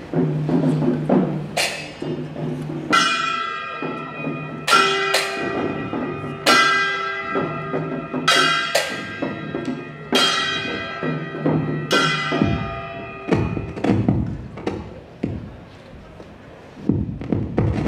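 Chinese folk percussion for a sanjuban act: gong, cymbals and drum struck in a slow pattern, a ringing stroke every second or two. Over the last few seconds the strikes are lighter and shorter.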